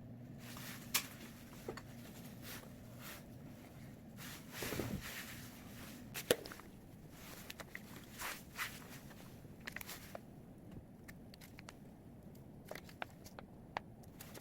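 Scattered light clicks and taps of small objects being picked up and set down during resin craft work, with a brief rubbing sound about five seconds in.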